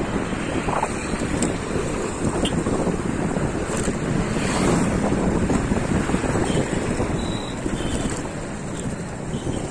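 Wind rushing and buffeting over the microphone of a camera riding on a moving bicycle, a steady noise.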